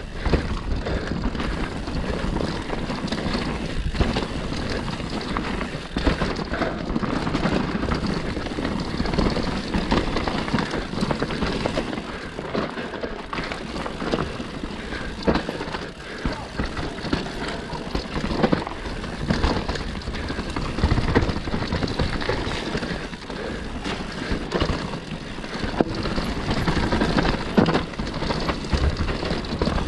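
Mountain bike riding down a dirt forest trail: a continuous rush of tyre and riding noise with a low rumble, broken by many short knocks and rattles from the bike going over rough ground.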